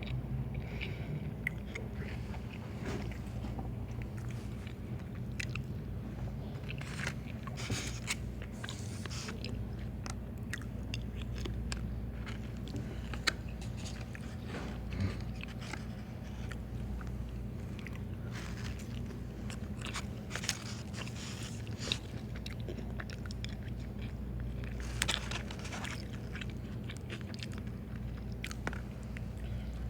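Close-up chewing and biting of a meal of chicken, rice and black beans, with scattered crunchy bites, over a steady low hum.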